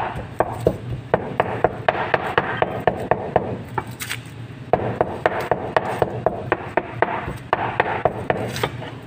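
Large kitchen knife chopping raw chicken into mince on a plastic cutting board: quick, even strikes, about three or four a second, thinning out briefly around the middle.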